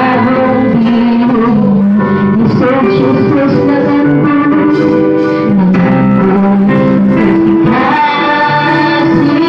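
Live praise-and-worship song: women singing into microphones over a guitar-led accompaniment, played loud through the loudspeakers.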